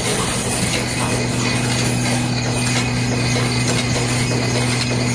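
High-speed tube cartoning machine running, a steady hum under fast, regular mechanical clicking and clatter.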